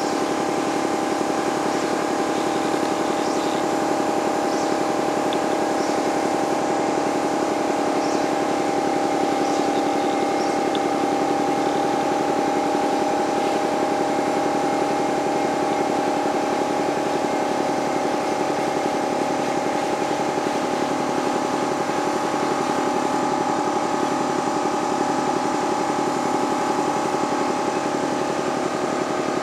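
A boat's outboard motor running steadily at an even pitch, without revving up or down.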